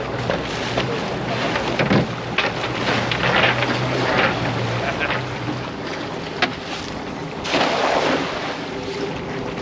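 A cast net thrown from a boat lands on the water with a loud splashing hiss near the end, over wind on the microphone and water against the hull. A low steady motor hum stops a little past halfway.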